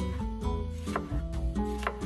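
Background music with a bass line, over a chef's knife slicing a red bell pepper into strips, the blade tapping a wooden cutting board a few times.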